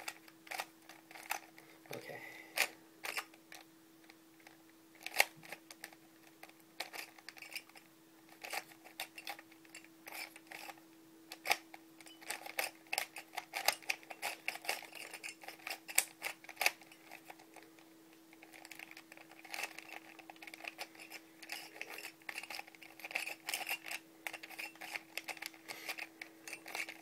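Homemade 3x4x5 shapeshifting Siamese puzzle cube being turned quickly during a solve: rapid, irregular plastic clicks and clacks of the layers turning, several a second.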